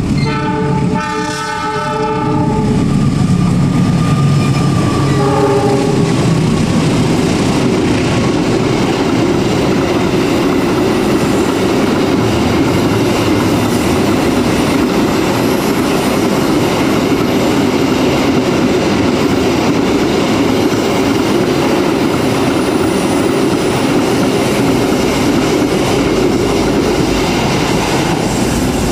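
A KAI diesel locomotive hauling a container freight train sounds its horn as it passes: a long blast, then a short one about five seconds in. This is followed by the steady rumble and clatter of the freight wagons rolling past on the rails.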